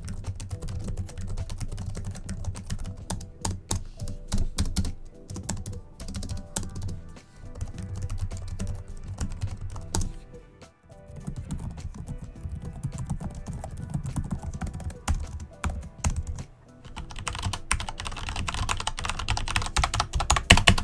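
Typing on the Cougar Vantar's low-profile scissor-switch membrane keys: a dense, dull clatter with a short break about halfway through. In the last few seconds it gives way to a louder, sharper clatter from a Corsair mechanical keyboard with Cherry MX Red switches.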